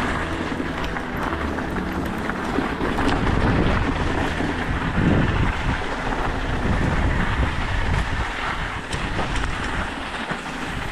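Mountain bike rolling down a loose, rough trail: steady tyre rumble and rattling of the bike with a few short knocks, and wind noise on the microphone.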